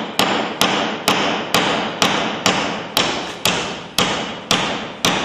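Hammer blows struck at a steady pace, about two a second, eleven or so in all, each with a short echoing tail.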